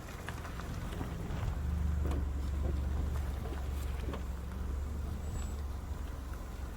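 Four-wheel-drive vehicle's engine running under load on a rough dirt track, a low rumble that swells about a second and a half in, with scattered knocks and rattles.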